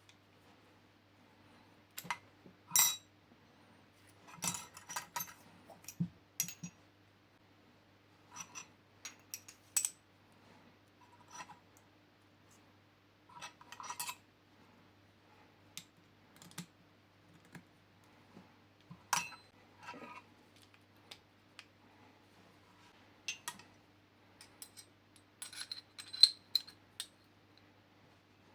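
Metal parts of a Swiss K11 bolt-action rifle clicking and clinking as they are handled by hand during disassembly and reassembly. The sharp clicks come irregularly, a few every couple of seconds, and grow busier near the end.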